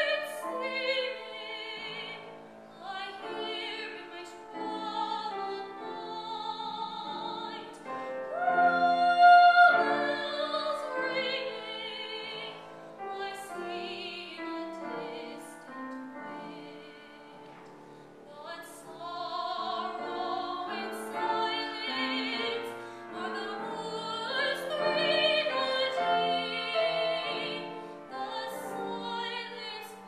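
A woman singing a classical art song in a trained, operatic voice with vibrato, accompanied by a grand piano. The singing goes quieter for a few seconds a little past the middle, then rises again.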